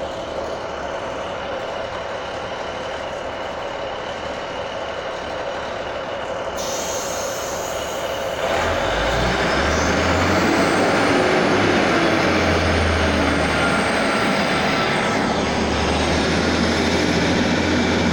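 Class 156 Sprinter diesel multiple unit's underfloor diesel engines running at the platform, then throttling up about eight seconds in as the train pulls away, the engine note deeper and louder with a thin whine that rises above it.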